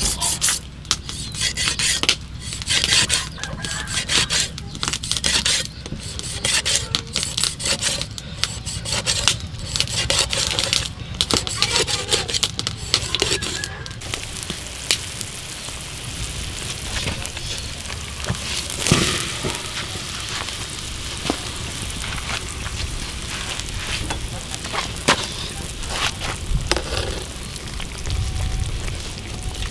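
A cleaver working a whole fish on a wooden chopping board, with many quick, sharp strokes in the first half. After that comes broth bubbling in a wok over a wood fire, steadier, with a few sharp crackles.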